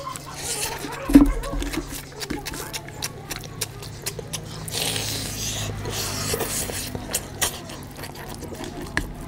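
Close-miked eating by hand: wet chewing and lip-smacking clicks, and fingers squishing and mixing rice with oily mutton curry on a plate. A single dull thump about a second in is the loudest sound.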